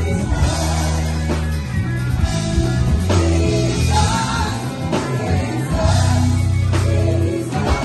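Live band playing amplified gospel music with singing: held bass notes, drum hits and a vocal line over them.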